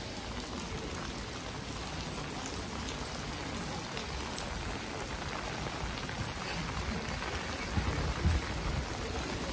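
Steady rain falling on wet stone paving: an even hiss, with a few low bumps about eight seconds in.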